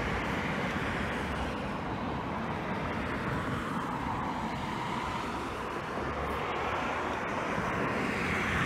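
Road traffic, vehicles passing steadily; one fades out around the middle and another builds up toward the end.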